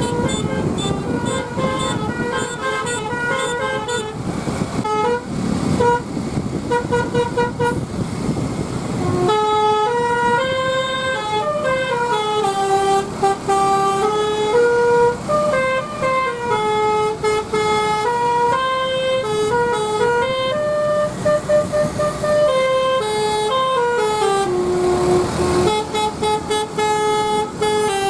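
Basuri 'telolet' multi-tone bus horn playing: quick runs of short toots for the first several seconds, then a longer tune of held notes stepping up and down in pitch. Bus engine and road rumble run underneath.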